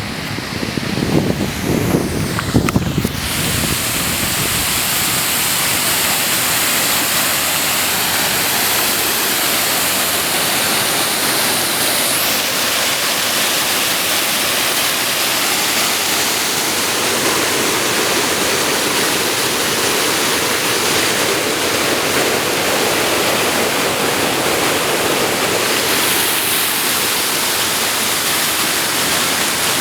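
Steady rush of running water, an even hiss that swells up about three seconds in and then holds at one level.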